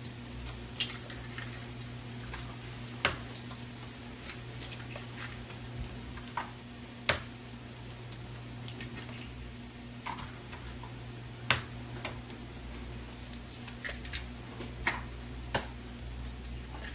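Eggs cracked by hand one after another into a plastic mixing bowl: a sharp crack of shell about every four seconds, with smaller ticks and taps between, over a steady low hum.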